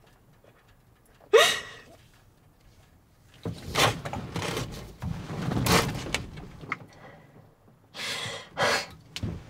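A woman crying: a sudden sob with a falling pitch about a second in, then several seconds of ragged, heavy breaths and sniffs.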